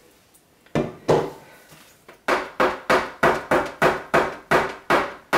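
Hard knocks in a soap-making workspace: two, then a steady run of about ten at roughly three a second, from a mold or pot being knocked or tapped while soap batter is poured.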